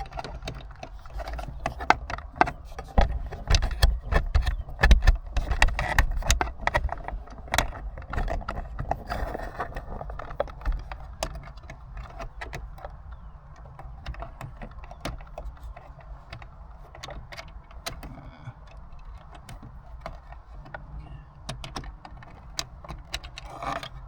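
Hands working small parts at a dash cam mount: irregular clicks, taps and rattles of plastic and small screws, with heavier bumps and knocks between about 3 and 7 seconds in.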